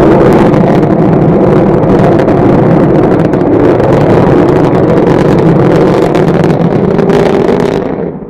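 Loud, steady rumble of a rocket engine, a rough roar shot through with crackling, that drops away near the end.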